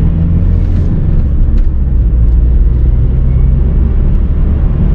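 Car engine and road noise while driving: a steady low drone.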